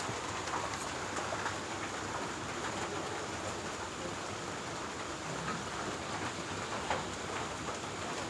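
Steady rain falling, an even hiss, with a few faint ticks.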